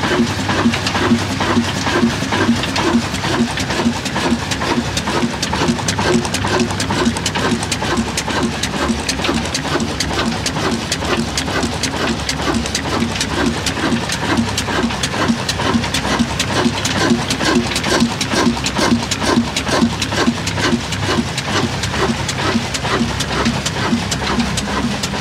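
Old black Ruston Hornsby-type stationary diesel engine running steadily, with a regular beat of about five a second and a fast, light ticking over it.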